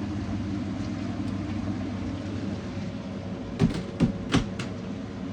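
Cooking sounds at a pot of fish in tomato sauce: a steady low rumble, with four quick sharp knocks about three and a half to four and a half seconds in, like a utensil against the pot.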